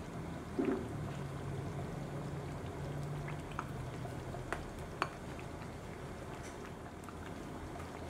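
Thick tomato and coconut-milk chicken stew simmering in a stainless steel pan, bubbling steadily. There is a soft thump just under a second in, and a few sharp clicks around the middle while cubed cheese is tipped in from a bowl.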